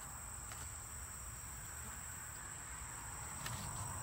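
Steady high-pitched insect drone from crickets or other insects, with a low rumble underneath and a couple of faint clicks.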